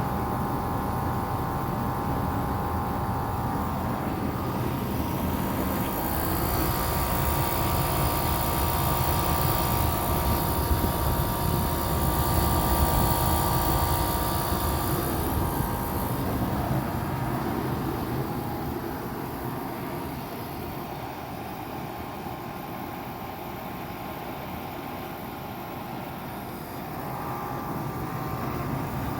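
A 2006 Rheem Classic 3.5-ton central air conditioner running steadily: a fan whoosh with a constant hum of several steady tones. It drops somewhat quieter past the middle and comes back up near the end.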